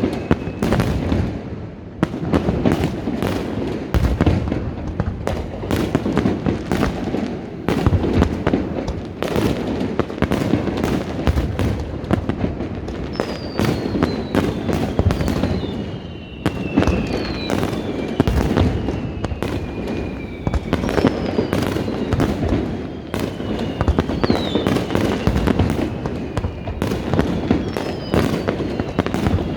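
Aerial fireworks display: a dense, continuous run of bangs and crackling, with several whistles falling in pitch in the second half.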